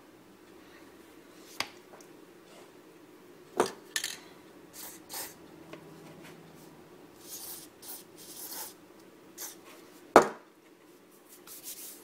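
Plastic parts of a Mercedes COMAND control knob handled on a bench: a few sharp plastic clicks and knocks, the loudest nearly ten seconds in, with several short hisses of lithium spray grease from an aerosol can onto the knob's gears, two of them a little past the middle.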